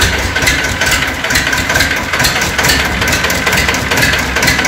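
TAFE 25 DI tractor's two-cylinder diesel engine idling with a steady, even beat.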